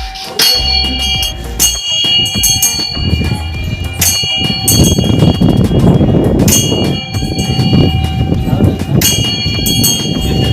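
Background music built on bell-like chimes struck every second or two, ringing on, over a steady bass line.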